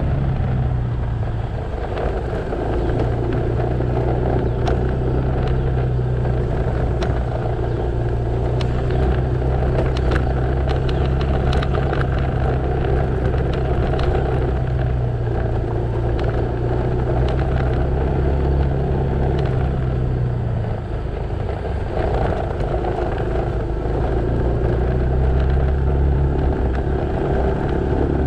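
Motorcycle engine running steadily on the road, over a haze of road and wind noise. The engine note drops away briefly about a second in and again about two-thirds of the way through, then picks up again.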